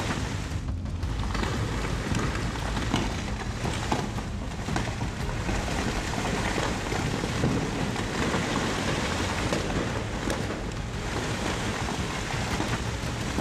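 Rain falling steadily: a dense, even hiss with a constant low rumble underneath and small scattered ticks.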